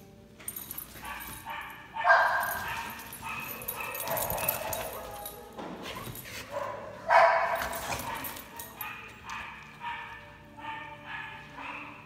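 Two dogs, a blue merle Australian Shepherd and a tricolour hound mix, vocalizing in rough play: a loud bark about two seconds in and again about seven seconds in, with many shorter barks and yips in between.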